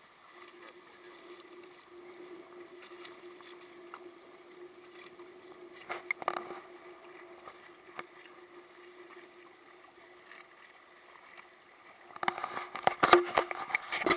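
Small sailboat under way, with water washing along its hull and a steady hum underneath. About twelve seconds in, loud knocks and rumbles of the camera being handled cover everything else.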